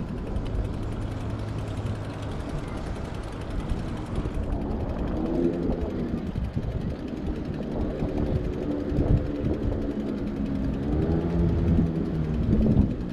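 Low rumble of wind on a moving microphone mixed with motor-vehicle engines nearby, whose pitch rises and falls several times in the second half.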